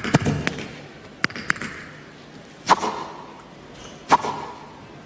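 Several sharp knocks and smacks at uneven intervals, each ringing on briefly in a large hall, the loudest about two and a half and four seconds in.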